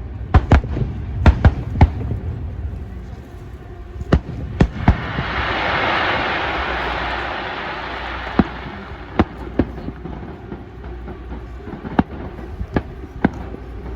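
Fireworks bursting overhead: a string of sharp, separate bangs at uneven intervals, with a broad hiss that swells about five seconds in and fades away over several seconds.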